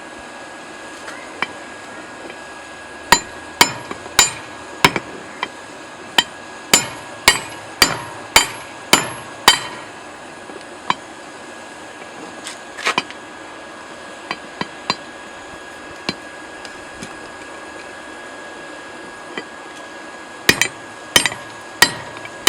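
Hand hammer striking a hot railroad clip being forged into a drift, a run of about a dozen ringing metal blows at roughly two a second, then a few lighter taps and a short burst of blows near the end.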